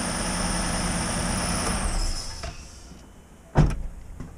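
Ford Explorer engine idling steadily, then switched off about two seconds in, its running sound dying away within the next second. A single sharp thump follows about three and a half seconds in.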